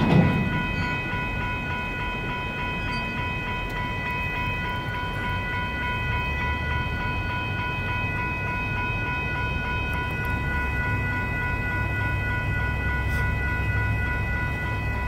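Railroad crossing electronic bells (WCH Gen 2 Type 1.5) ringing steadily with a rapid repeating ding, over the low rumble of freight cars rolling through the crossing. The rumble grows a little louder partway through.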